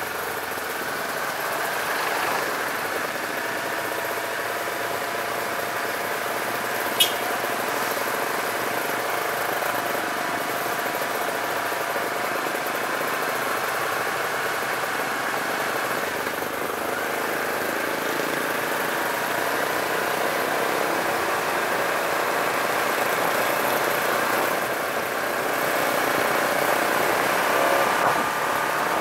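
Sport motorcycle engine running steadily, heard close from a camera mounted on the bike, mixed with the engines of trucks and a bus passing by. A single sharp click about seven seconds in.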